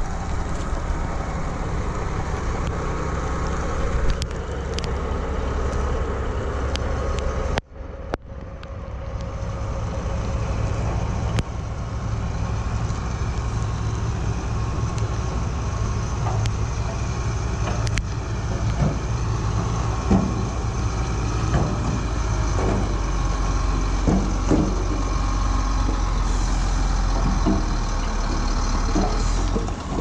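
Heavy diesel engines rumble steadily as a SHACMAN F2000 dump truck drives up. The truck raises its tipper bed, and in the second half scattered knocks are heard as stones and dirt slide out of the bed onto the ground.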